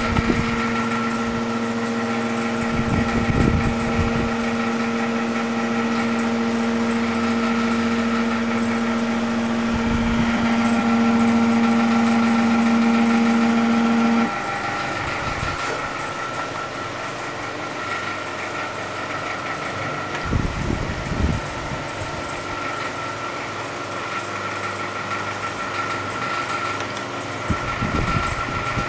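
Delta 3D printer running, with a steady high whine from its motors and fans. A strong lower hum cuts off suddenly about halfway through, and a few short low thumps come through.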